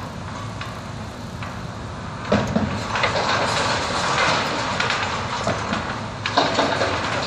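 A wrecking ball smashes into a brick building about two seconds in, followed by several seconds of masonry and debris crashing down, with a second crash near the end. A steady engine rumble from the crane runs underneath.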